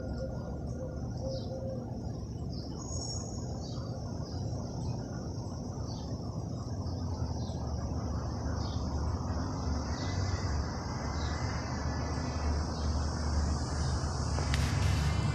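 A low rumble from overhead, steady at first and growing louder through the second half with a rising hiss on top, with short bird chirps over it.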